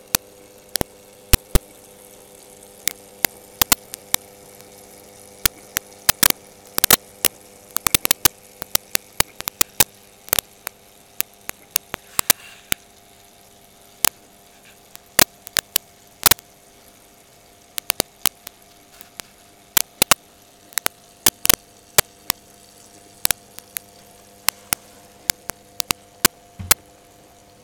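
Steady electrical hum with loud, irregular sharp clicks and crackles scattered through it, some coming in quick clusters.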